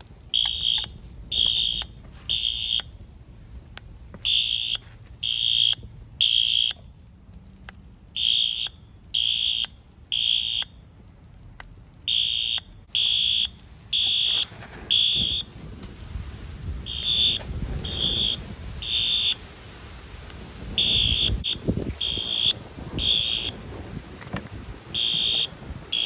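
Wheelock AS horn/strobe sounding its electronic horn in the temporal-three evacuation pattern: three half-second beeps at one high pitch, a pause, then three more, repeating throughout while the device is on fire. Underneath is the crackle and rush of the burning newspaper fire, strongest in the second half.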